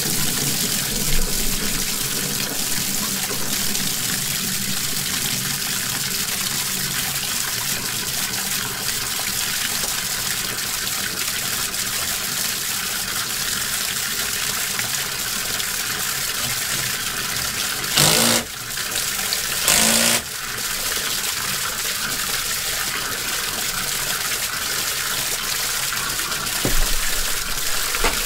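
Laundry tub faucet running full into a utility sink with its drain plugged, filling the sink to flush-test the freshly snaked drain line; two short, louder sounds come about two-thirds of the way through.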